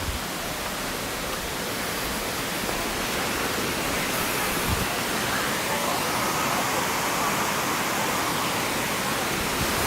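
Steady rushing roar of the Dzhur-Dzhur waterfall, growing gradually louder.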